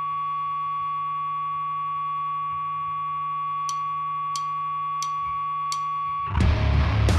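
Heavy rock band: a steady held drone of sustained tones with one high tone above it, then four evenly spaced sharp ticks about two thirds of a second apart, and the full band comes in loud with distorted guitars and drums near the end.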